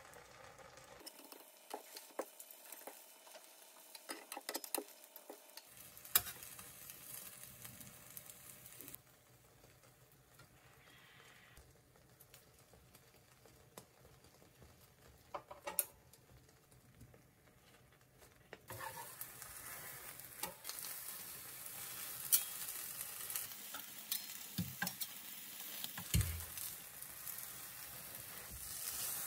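Beaten egg with mushrooms and ham frying in a nonstick pan, sizzling, louder from about two-thirds of the way through, with scattered clicks and scrapes of a spatula and fork against the pan as the omelette is spread and rolled.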